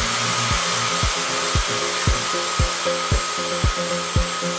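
Black & Decker KA900E narrow belt sander running steadily with a high motor whine, its belt grinding down hardened fibreglass-reinforced body filler on a cast iron gutter. Background music with a steady beat about twice a second plays underneath.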